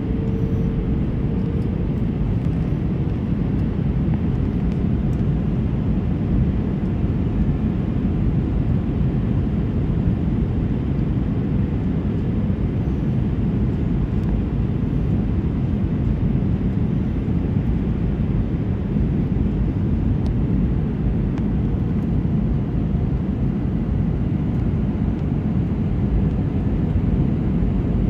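Steady cabin noise of an Airbus A319 airliner on approach, heard from a window seat: an even drone of jet engines and rushing air, heaviest in the low range.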